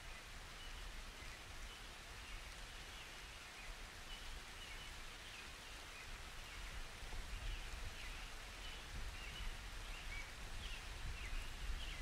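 Light summer rain falling steadily, with a low rumble underneath and short high chirps repeating throughout, coming more often toward the end.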